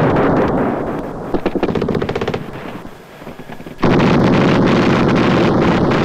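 Automatic assault-rifle fire in rapid bursts that thin out and stop about two and a half seconds in. Nearly four seconds in, a sudden loud, continuous rumble with a rapid crackle starts.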